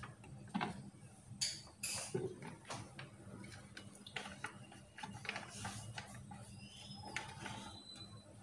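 Faint kitchen sounds: scattered light clicks and knocks over a steady low hum, with a short high whistle-like tone near the end.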